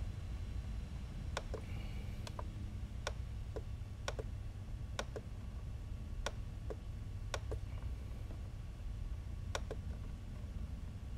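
Sharp clicks of the buttons on a RadioMaster TX16S radio transmitter being pressed while menus are navigated, coming at irregular intervals and often in quick pairs, over a steady low hum.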